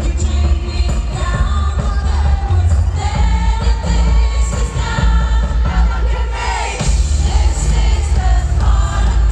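Live amplified pop music in an arena: a woman's lead vocal over a band with heavy bass and a steady beat.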